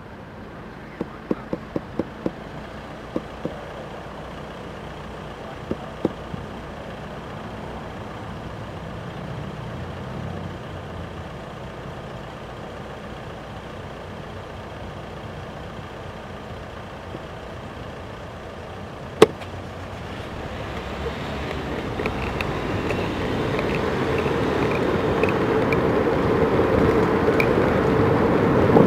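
Road traffic running in a queue at a red light, with a few sharp clicks in the first seconds and one loud click about 19 seconds in. From about 20 seconds the noise rises steadily as the bicycle moves off, road and wind noise growing on the microphone.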